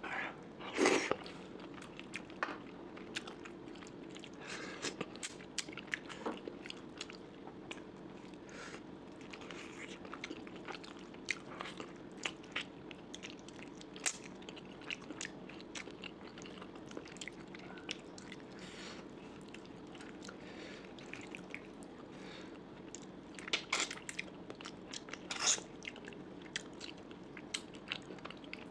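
A person chewing and biting food close to the microphone, with many small crunches and wet clicks over a steady low hum. Louder bites come about a second in and again near the end.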